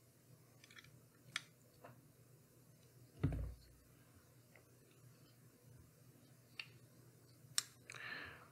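Faint, sparse clicks and taps of a folding knife and a small screwdriver being handled while the knife's pivot screw is adjusted, with one dull thump about three seconds in.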